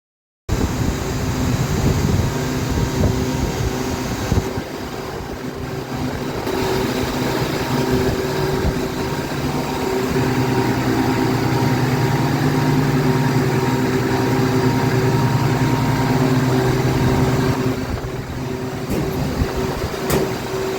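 Bitzer refrigeration compressor on a 22-ton HVAC unit running, a loud steady mechanical hum with constant low tones. It dips slightly in level twice.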